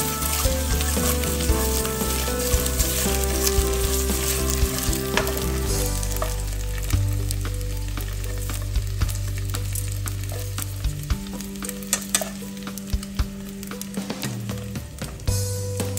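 Peeled hard-boiled eggs sizzling as they fry in hot oil and curry spices in a pan. Metal tongs click against the pot as they turn the eggs.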